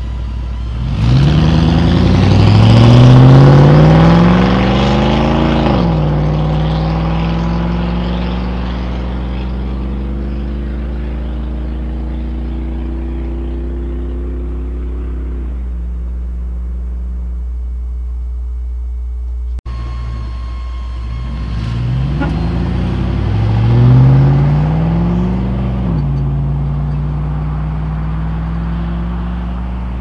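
1999 Chevrolet Silverado's 5.3L LM7 V8 through a Cherry Bomb Glasspack muffler, accelerating hard away with its pitch climbing to an upshift about six seconds in, then fading as it drives off. After a cut, the same V8 through a Cherry Bomb Salute muffler accelerates again, climbing in pitch until about two-thirds of the way through, then settling to a steady drone.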